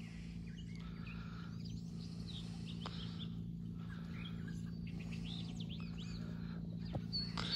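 Small songbirds chirping and calling over a steady low hum, which fits the pond aerator's pump motor running.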